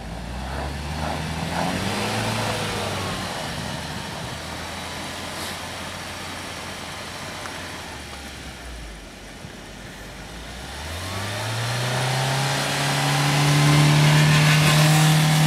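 UAZ Patriot's engine revving under load as the SUV ploughs through deep snow up to its sills, pushing snow with its bumper. The revs rise briefly at first, ease off and run quieter for several seconds, then climb to a loud, high, steady rev near the end.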